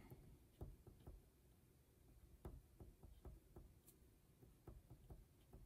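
Faint, scattered scratches and taps of a pen writing on paper.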